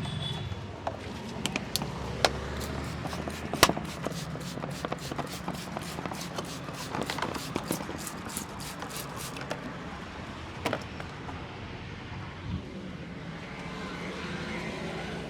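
Hands slapping and tapping a person's head during a head massage: a few sharp slaps, then a fast even run of about five taps a second for several seconds. A steady hum of street traffic runs underneath.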